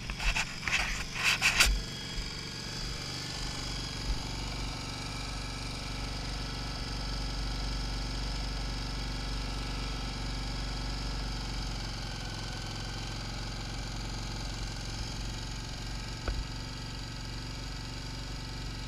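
Yamaha Virago 920 air-cooled V-twin idling steadily while parked. In the first two seconds a few sharp knocks come from handling the helmet camera.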